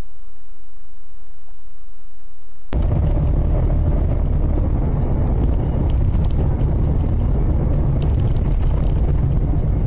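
Dashcam recording of a car driving: steady deep rumble of engine and road noise. About a third of the way in it cuts abruptly to another recording with louder, fuller road noise and a few faint ticks.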